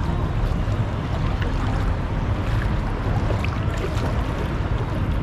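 Boat's engine running steadily as a low drone, with wind on the microphone and the wash of water around the hull.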